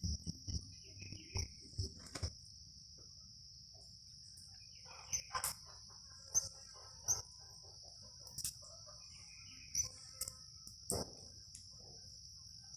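Crickets chirping in a steady high-pitched trill, with sharp pops every second or two from the burning bonfire crackling.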